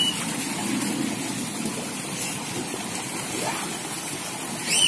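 Pool water splashing and churning steadily as children swim and play, with a short high-pitched squeal near the end.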